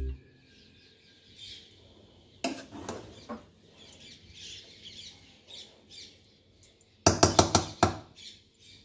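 A metal ladle scraping and knocking against an aluminium pressure-cooker pot while cooked rice is stirred, with a few clicks about two and a half seconds in and a quick run of about six sharp knocks near the end. Birds chirp faintly in the background.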